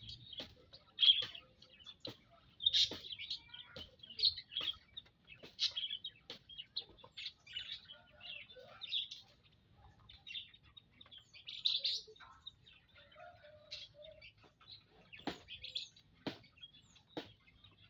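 A group of munias (emprit) chirping, many short high calls overlapping and following one another without a break, with a few sharp clicks among them.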